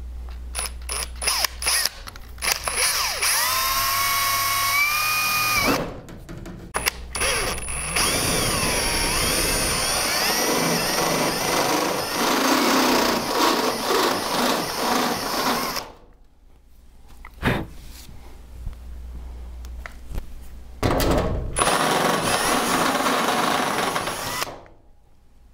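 Cordless drill opening up a hole in the thin aluminium fuselage skin of a Titan T-51D Mustang replica. It gives a few short trigger pulses, then three longer runs, the motor's whine rising as it spins up at the start of a run.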